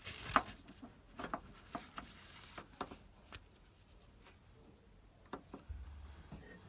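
Scattered light clicks and knocks of tools and parts being handled, the loudest about a third of a second in, with a low hum coming in near the end.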